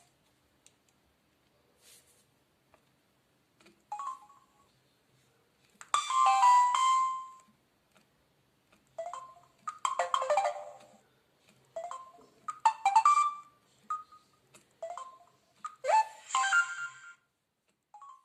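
Samsung SGH-F480 mobile phone playing its message alert tones one after another: a series of short melodic tones, each a second or two long, separated by pauses of one to two seconds.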